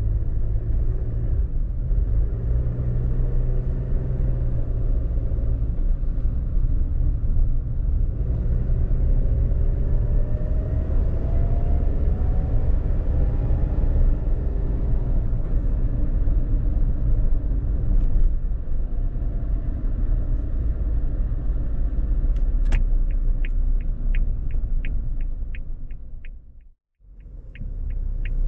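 Cabin sound of a Suzuki Jimny's 660 cc three-cylinder turbo engine and road noise while driving in town, with the engine note rising as it speeds up about eight seconds in. Near the end, turn-signal ticking at about three clicks a second, and the sound briefly drops out.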